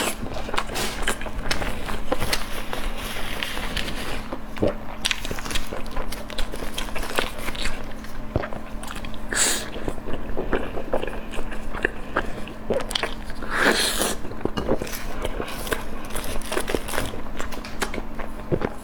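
Close-miked eating: a person biting and chewing food, with many short sharp mouth clicks throughout.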